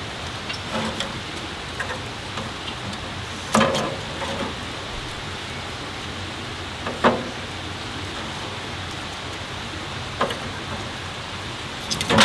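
Split wooden kindling sticks knocked down onto the grate of a titanium wood stove's firebox, a few separate clacks a few seconds apart, over a steady hiss.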